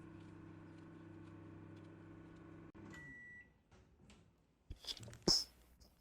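Microwave oven running with a steady hum, which cuts off with a click about two and a half seconds in, followed by one short beep as the heating finishes. A few sharp clicks and knocks come near the end.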